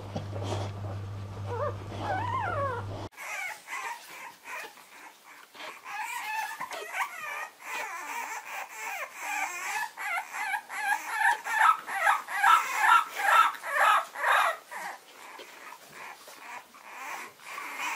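Faint squeaks of newborn bulldog puppies over a low hum, then, from about three seconds in, a French bulldog puppy howling and whimpering in a long series of high, wavering cries, loudest about two-thirds of the way through.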